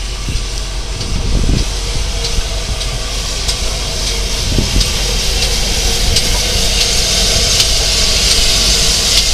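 GWR 4900 Class 'Hall' 4-6-0 steam locomotive running slowly past at close range, with a steam hiss that grows louder as it draws alongside. Scattered sharp clicks and clanks from the wheels and motion over a low rumble.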